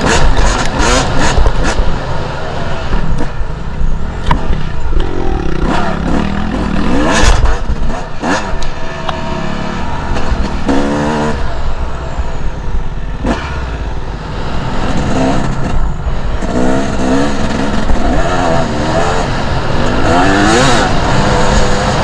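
Two-stroke enduro motorcycle engine revving up and down as the bike is ridden off-road, mixed with wind noise and occasional knocks and clatter.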